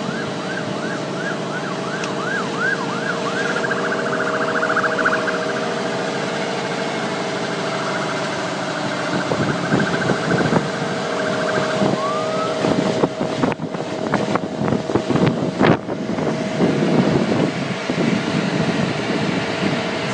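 Emergency vehicle siren in a fast yelp, about three rises and falls a second, that changes to a held tone and then stops; a short rising whoop follows a few seconds later. Under it runs a steady lower hum. From the middle on, rough gusty noise with sharp knocks takes over.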